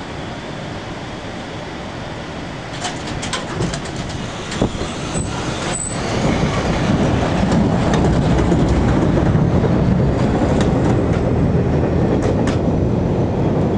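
Chicago 'L' rapid-transit train pulling out along elevated track, its wheels clicking over rail joints, with two short high wheel squeals about five seconds in. A louder low rumble fills the second half.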